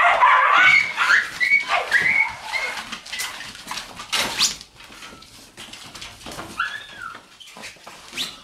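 Shiba Inu puppies yipping and whining, a quick run of short high yips in the first three seconds and another whine near seven seconds. Between the calls, paws scratch and rustle the nylon pop-up tent.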